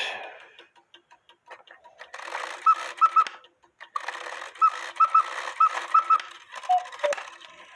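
Count-wheel cuckoo clock movement running through its cuckoo strike: the gear train whirs and clicks while the bellows pipes give short calls about once a second. The quail and cuckoo bird wires have just been adjusted, so the quail no longer chirps along with the cuckoo.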